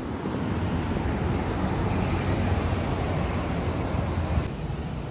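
Outdoor city street noise: a steady rumbling hiss of road traffic with wind buffeting the microphone. It drops slightly and changes character about four and a half seconds in.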